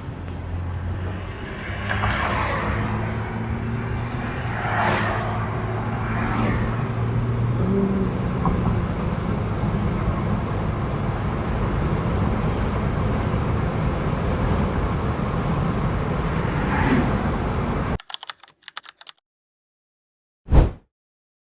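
Vehicle engine and road noise heard from inside, a steady hum with a few swells as it picks up speed; it cuts off abruptly about three-quarters of the way through, followed by one short sharp sound near the end.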